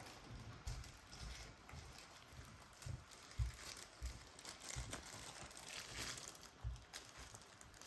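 Faint crinkling and rustling from hands handling the alien model's head, with irregular soft knocks scattered through.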